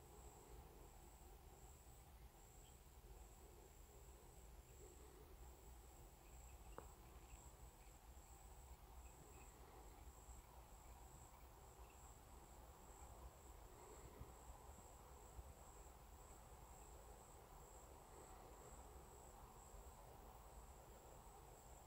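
Near silence, with an insect chirping faintly in a steady, even, high-pitched pulse.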